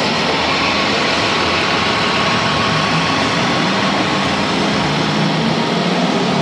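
Electronic sound module of a scale RC Kenworth heavy-haul truck playing a heavy diesel engine running at low revs, over a steady background hiss.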